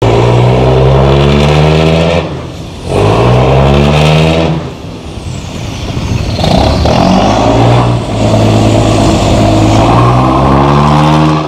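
A wooden fishing boat's marine diesel engine revving hard and dropping back several times, its pitch climbing and falling. It eases off briefly about two seconds in and again near the middle, then revs up once more toward the end.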